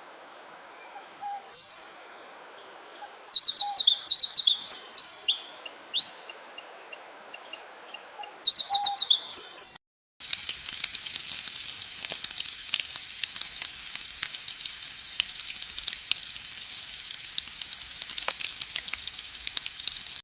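Birds chirping, with short calls and quick high trills that come in two clusters. After a brief break, the birds give way to a steady high hiss full of fine crackles, like sizzling.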